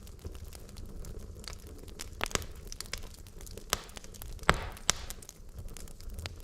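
Wood logs burning in a fireplace, crackling with irregular sharp pops over a steady low rumble of flame; a cluster of louder pops comes between about two and five seconds in, the loudest near four and a half seconds.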